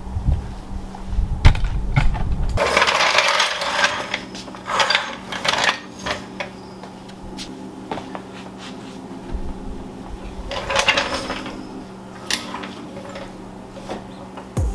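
A metal floor jack and its steel handle being handled on a concrete garage floor: irregular scraping rattles and sharp metallic clinks, as the jack is set under the car to lift it.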